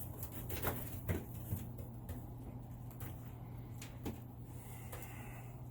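Pigeon-loft floor being scraped clean of droppings: a series of about six short scrapes and knocks spread over a few seconds, over a steady low hum.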